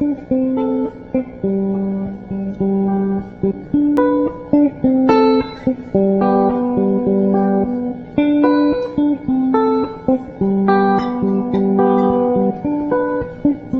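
Instrumental intro of a pop song: a plucked guitar picking out a repeating melody of short, distinct notes, with no singing yet.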